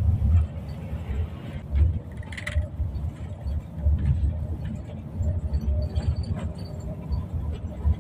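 Low, uneven rumble of a moving coach bus's engine and tyres heard inside the passenger cabin, with a few light clicks and rattles.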